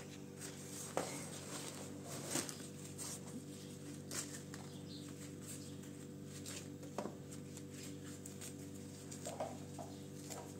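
Dry flatbread being torn and crumbled by hand over a metal tray, with scattered soft crackles and clicks, over a steady low hum.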